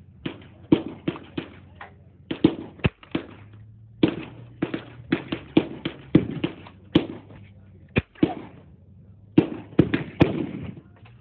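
Gunfire at a shooting range: rapid, irregular gunshots, about two or three a second, sometimes several close together, each with a short echoing tail.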